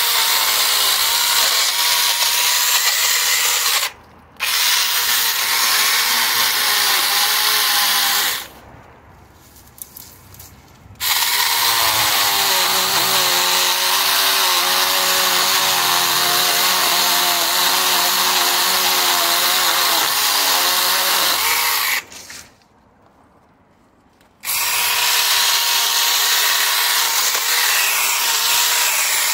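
Electric mini chainsaw running and cutting through ivy stems, its motor pitch wavering as the chain bites. It stops three times: briefly about four seconds in, then for a couple of seconds each around nine and twenty-three seconds in.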